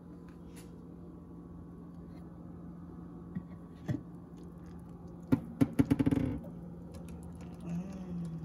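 Glass lid of a Crock-Pot slow cooker handled and lifted off the crock: a couple of light knocks, then a quick run of clinks and rattles about five seconds in. A steady low hum runs underneath.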